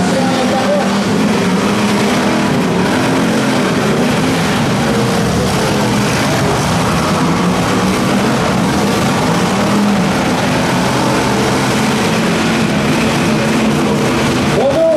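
Several demolition derby cars' V8 engines running and revving together as the cars push and ram each other, a loud, continuous sound whose engine tones keep rising and falling.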